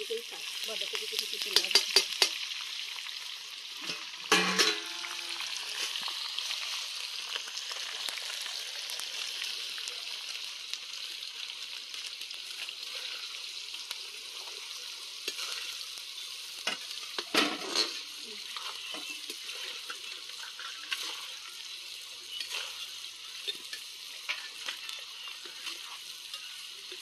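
Chopped onions sizzling in hot oil in a steel kadai, a steady hiss, while a steel ladle stirs them and clinks against the pan now and then, most loudly about four and a half and seventeen seconds in.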